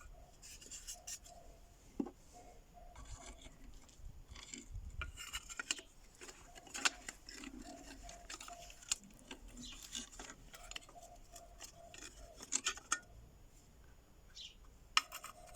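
Scattered clicks and light metallic clinks of alternator parts and hand tools being handled and fitted during reassembly of the alternator.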